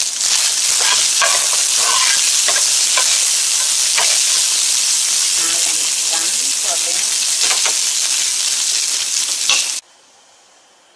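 Ground pork sizzling as it is stir-fried in a nonstick pan with no oil to cook off its fat, a silicone spatula scraping and stirring through it. The sizzle cuts off abruptly near the end.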